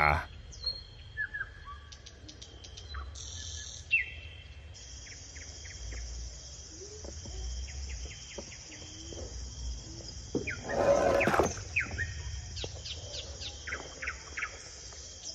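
Small birds chirping repeatedly, with a steady high insect-like buzz that comes in about five seconds in. About ten seconds in, a louder, rougher sound lasts for roughly a second.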